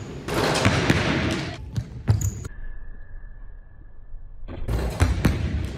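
Basketball bouncing and thuds on a hardwood gym floor during dunk attempts. The sound turns muffled and quieter for a couple of seconds in the middle.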